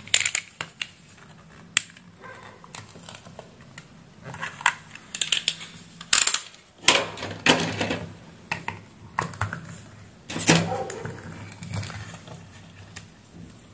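Irregular sharp clicks, scrapes and snaps of a Philips Norelco 7810XL shaver's plastic handle housing being pried open, its clips giving way, with the loudest snaps a little past halfway and near the end.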